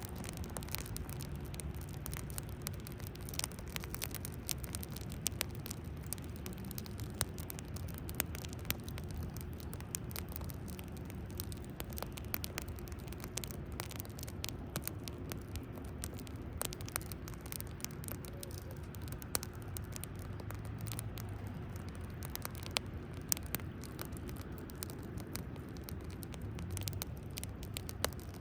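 Wood bonfire crackling, with frequent irregular sharp pops and snaps over a steady low rumble.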